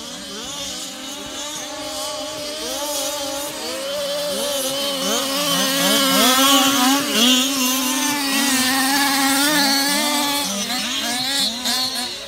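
Several 1/5-scale petrol RC cars race together, their small two-stroke engines revving, with many overlapping pitches rising and falling. The sound is loudest around the middle as the cars pass close.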